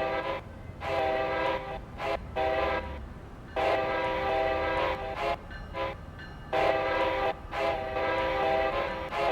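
Amtrak locomotive's multi-tone air horn sounding a chord in a rapid run of short and long blasts, about eight in all. It is being played in a rhythmic horn show, not a single warning signal.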